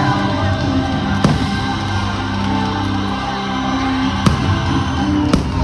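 Orchestral fireworks-show music playing loud, with sharp firework bangs cracking over it about a second in and twice near the end.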